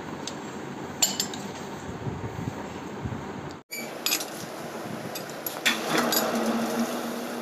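Scattered metallic clinks and taps on a lathe chuck and V-groove pulley while the pulley is set true against a dial indicator, with a low steady hum coming in near the end.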